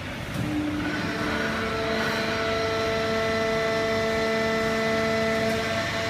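Fully automatic horizontal hydraulic baler and its feed conveyor running: a steady mechanical din, with several steady whining tones that come in about a second in.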